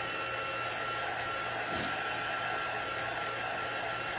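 Handheld craft heat tool running steadily, its fan blowing hot air with a constant thin whine, drying wet chalk paint on dowel rods.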